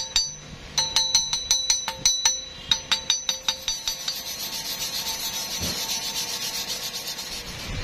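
Quick runs of sharp, ringing taps on a steel pipe-to-plate weld, typical of a chipping hammer knocking slag off a fresh stick weld. From about four seconds in, a steel wire brush scrubs the weld in rapid strokes with a steady raspy hiss.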